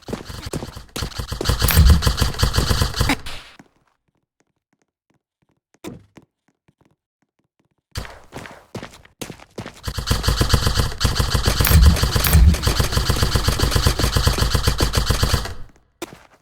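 Airsoft gun firing on full auto: two long bursts of rapid, evenly spaced shots. The first lasts about three seconds; the second starts about eight seconds in and runs for about seven seconds.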